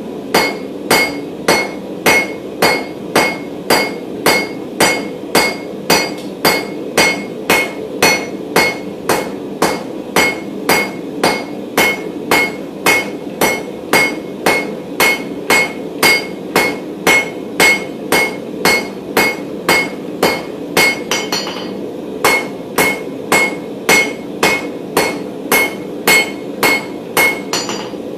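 Hammer blows on hot mild steel bar against an anvil, drawing a squared section and point: steady, about two ringing strikes a second, with a brief pause about 21 seconds in.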